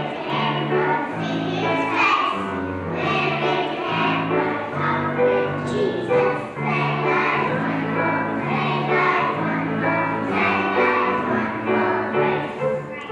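Young children's choir singing a song together, with instrumental accompaniment holding low notes beneath the voices.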